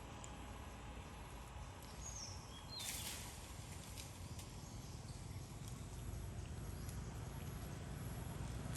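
Faint outdoor background noise with a few light clicks, a couple of short high chirps about two seconds in and a brief rustle-like burst about three seconds in.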